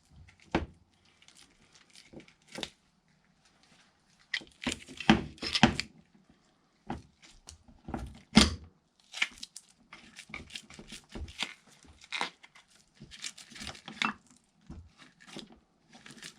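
Hands working clamps and a two-part mold on a bench: scattered sharp knocks of metal parts and short rustling, scraping bursts as the mold is clamped shut.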